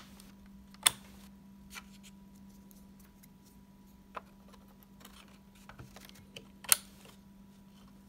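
2 GB DDR2 laptop memory sticks being pushed into the memory slots of a Dell Inspiron 9400, with two sharp clicks as they snap into the slot's retaining clips, about a second in and near the end, and a few fainter plastic ticks between.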